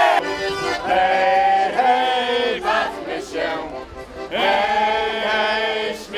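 A group of voices singing together in chorus, in phrases of held notes.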